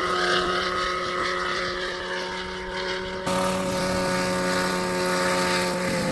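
Small single-seat helicopter's engine and rotor running at a steady speed with a steady droning tone. There is an abrupt jump in the sound a little past three seconds, and the pitch sags slightly near the end.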